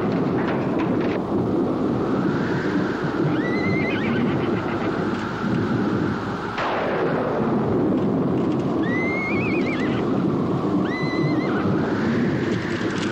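Horses neighing, three wavering whinnies, over a dense steady rumble, with a sudden crack about six and a half seconds in.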